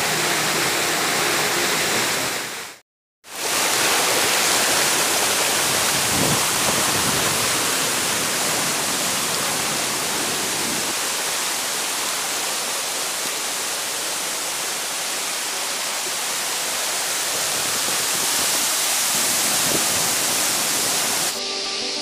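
Steady, loud rushing roar of a waterfall plunging into its pool. It cuts out for a moment about three seconds in, and background music comes up near the end.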